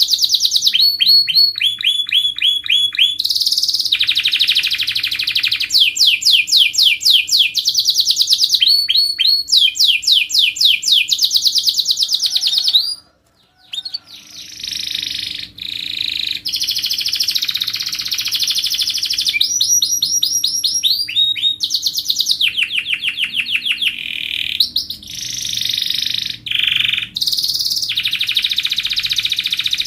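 Domestic canary singing a long song of fast repeated trills, switching to a new trill every second or two, with a short break about halfway through.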